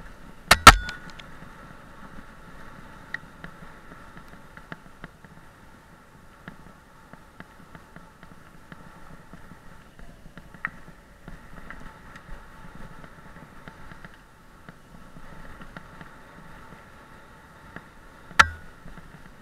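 A bike riding fast down a bumpy dirt trail: a steady high whirr over a low rattle from the ground, broken by two sharp knocks, one about half a second in and one near the end.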